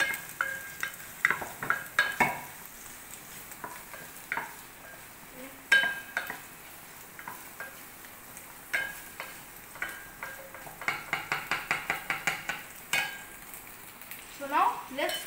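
A wooden spatula scraping and knocking against a clay pot as chicken sausage pieces are stirred while frying in oil, over a faint sizzle. There is a quick run of scrapes about eleven seconds in.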